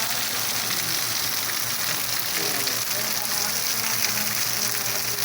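Heavy rain pouring down, a steady, even hiss, over a faint low hum.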